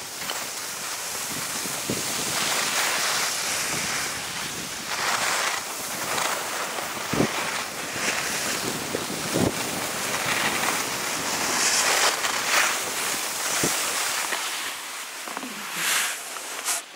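Skis sliding and scraping over the snow in swelling swishes as the skier turns, with wind buffeting the action camera's microphone. A few faint knocks break in along the way.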